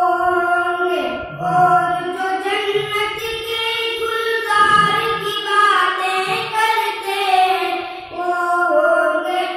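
Boys singing a naat, an Islamic devotional poem in praise of the Prophet, in long held melodic phrases that glide between notes.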